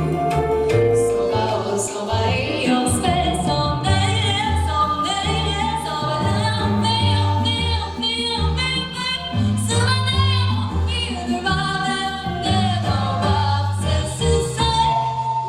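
Music: a lead melody line with vibrato over a sustained bass-line backing.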